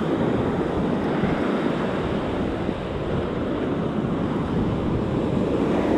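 Ocean surf breaking and washing up the sand as a steady rushing noise, with wind buffeting the microphone.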